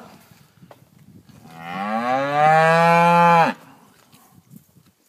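A calf mooing once, a single long bawl of about two seconds that rises in pitch, holds, then drops off at the end.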